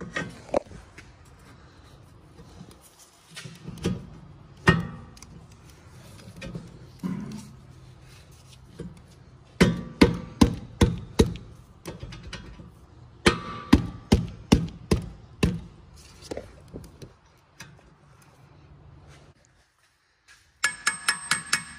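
Hammer blows on the steel hub of a new Audi A4 rear wheel bearing, driving it onto the stub axle: a few scattered knocks, then two quick runs of about six strikes each. Light mallet-percussion music comes in near the end.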